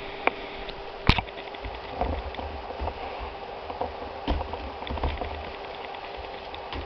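A rigid presentation box being handled and its lid lifted off by hand, with a sharp click about a second in followed by scattered soft knocks and rustling. A faint steady hum runs underneath.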